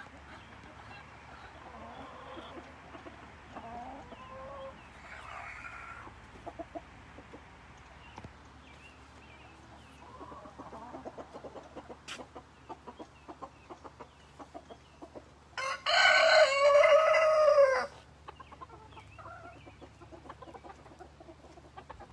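Backyard hens clucking softly, then a rooster crowing once, loud and about two seconds long, about three quarters of the way in, its last note falling.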